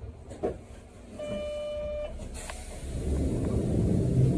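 A single steady beep held for about a second, heard in the cab of a Sapporo streetcar, followed by a sharp clunk and a low rumble that builds toward the end.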